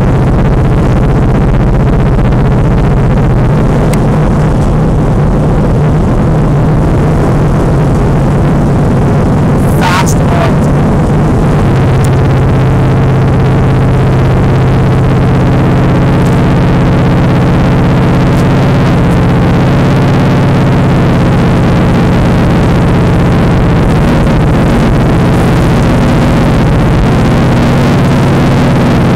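Chevrolet Chevelle's V8 engine running loud and steady while the car is driven, with one brief sharp high sound about ten seconds in.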